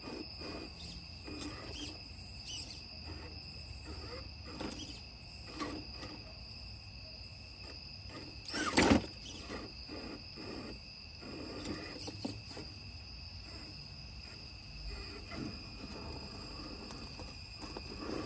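Crickets trilling steadily. Over them come short bursts from the RC crawler's electric motor and drivetrain as it works at a steep stone step, the loudest about nine seconds in.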